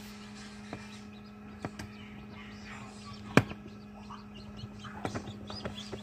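Incubator humming steadily while a newly hatched Wyandotte chick peeps in short high notes, mostly in the second half. Scattered taps and knocks, with one sharp knock about halfway through.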